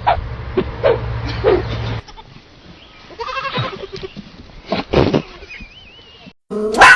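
A series of short animal cries, with a steady hum beneath the first two seconds.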